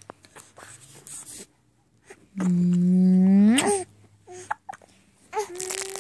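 A dog's drawn-out howl-like vocalization: one long, steady call of about a second and a half that slides sharply up in pitch at its end, then a second call starting near the end.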